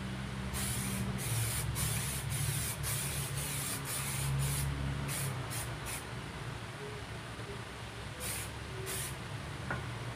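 Hydro-dipping activator sprayed in quick short bursts onto transfer film floating on water, a string of about a dozen hissing spurts, then two more near the end.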